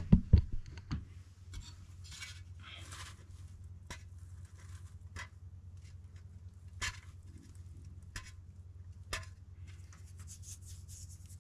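Handling noises as an old vinyl sticker is peeled off a plastic motorcycle windshield. A few loud knocks at the start, then scattered sharp clicks and short bouts of rustling scrape.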